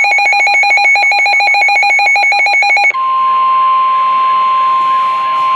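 Weather radio alarm: a rapid pulsing electronic beep, about eight pulses a second, that switches about three seconds in to the steady 1050 Hz NOAA Weather Radio warning tone, the signal that a warning is about to be broadcast.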